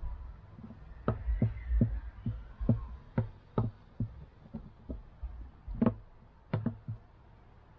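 About a dozen light knocks and taps at irregular intervals, with a low rumble underneath: objects being handled and set down on a hard surface.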